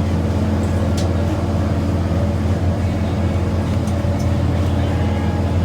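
A boat's engine running with a steady low drone, heard on board. A few faint ticks sound over it.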